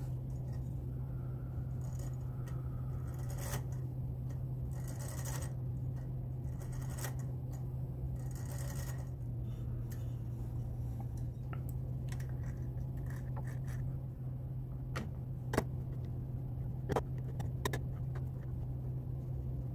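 Light metallic clicks, scrapes and rattles of a reassembled brass clock movement being handled and its wheels turned by hand, a check that everything spins freely without binding. The handling sounds are irregular and sit over a steady low hum, with a few sharper clicks near the end.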